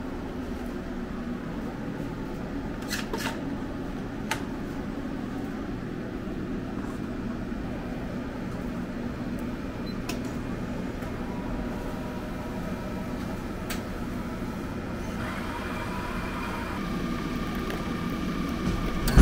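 Self-service coffee machine: a button click about halfway, then the machine running with a higher-pitched steady sound and pouring coffee into a paper cup near the end. Under it all is a steady hum of drink-bar machines and ventilation, with a few other sharp clicks.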